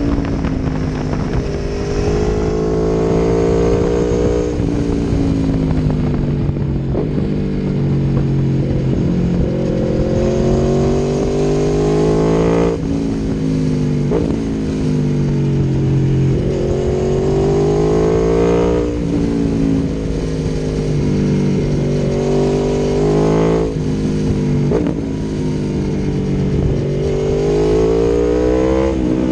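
Aprilia Tuono V4 1100's V4 engine through an Akrapovic exhaust, ridden on the road. Its note climbs under acceleration and falls away again several times, with a few sudden drops in pitch where it shifts gear.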